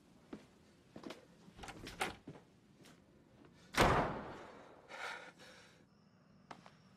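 A door slamming shut, one loud bang about four seconds in that rings out briefly, among faint scattered knocks and clicks.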